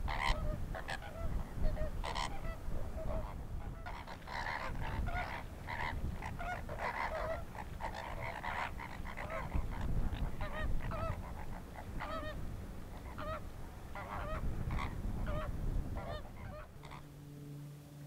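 A flock of greater flamingos honking during their group courtship display: many short calls overlapping, over a low rumble. The calls thin out near the end.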